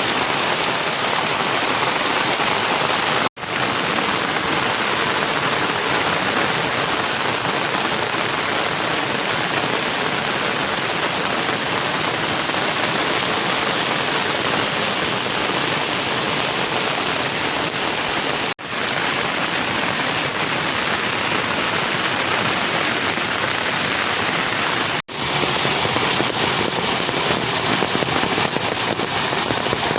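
Heavy rain falling steadily, a dense even hiss, with the sound breaking off for an instant three times.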